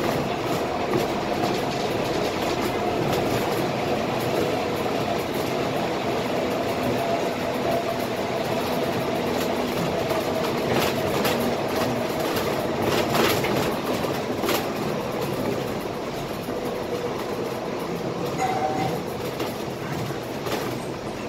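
Cabin noise of a Scania K320IA articulated bus on the move: a steady running rumble of engine, tyres and body with a clattering rattle, a few sharper knocks about halfway through, and the noise easing slightly near the end as the bus slows.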